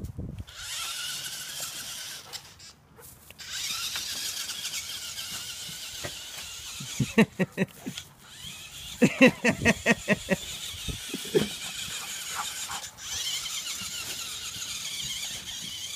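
Radio-controlled monster truck's motor and gears running with a high-pitched whir as it drives over grass, cutting out for about a second near the start and briefly again later. About halfway through, two quick runs of short, sharp cries, several a second, are louder than the motor.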